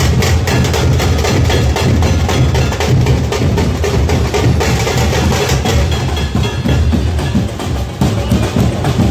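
Loud festival procession drumming: dense, rapid drum strokes over heavy bass drum.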